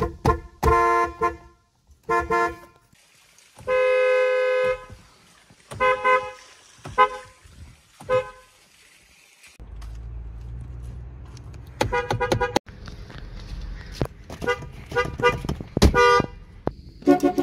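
General Motors car horns honking in a string of short clips: mostly quick toots, one held for about a second, each with two tones sounding together. A low rumble sits under the honks in the second half.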